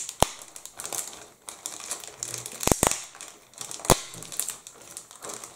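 Clear resealable plastic bag holding model-kit sprues, crinkling as it is handled, with four sharp clicks.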